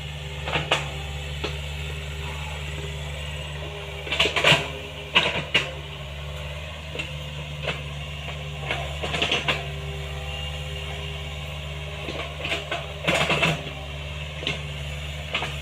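Small Hitachi excavator's diesel engine running steadily, with a few bursts of clanking and knocking from the working machine, the loudest about four to six seconds in and again near thirteen seconds.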